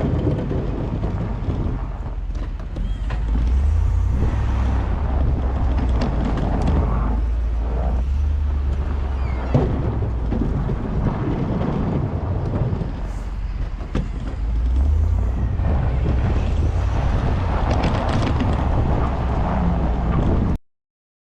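A vehicle's engine rumbling steadily with scattered knocks and rattles over it, until the sound cuts off suddenly near the end.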